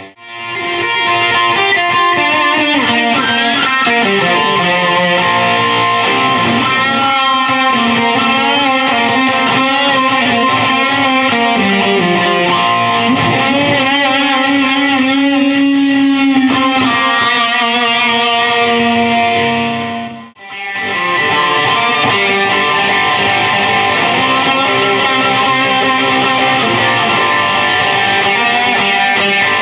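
Gibson Les Paul electric guitar played through a Fender Super Champ X2 amplifier, an amateur noodling on single notes and chords. The sound drops out briefly about twenty seconds in, then the playing goes on.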